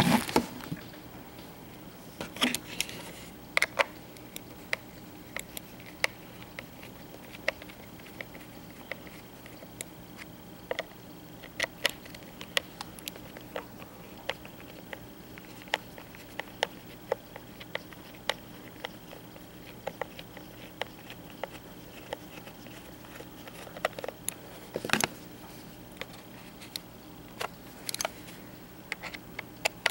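Small Phillips screwdriver working the screws out of the plastic underside of a Logitech MX-518 mouse: scattered, irregular light clicks and ticks from the driver tip and the handled plastic shell, over a steady low hum.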